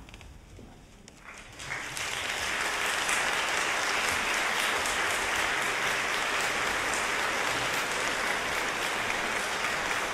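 An audience starts applauding after a short hush, about a second and a half in. The clapping then holds steady and dense.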